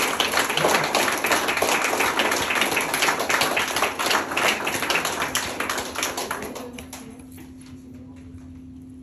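Audience clapping, a dense patter of many hands that thins out and dies away about six to seven seconds in.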